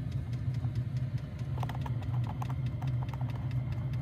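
Maxpeedingrods Chinese diesel heater running in a minivan: a steady low hum with a quick, regular ticking, about four ticks a second, typical of the heater's fuel dosing pump.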